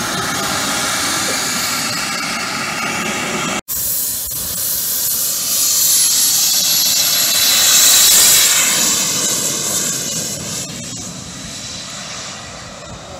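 Small gas-turbine engine of a radio-controlled scale BAE Hawk jet: a steady hissing whine while it taxis, swelling to full power for the takeoff run and loudest about two-thirds of the way through, then fading as the jet moves off down the field. The sound breaks off for an instant about a quarter of the way in.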